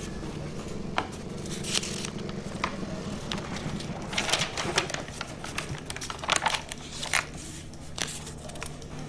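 Paper pages of a case file being turned and handled, in a series of short rustles with a few light taps, over a faint steady low hum.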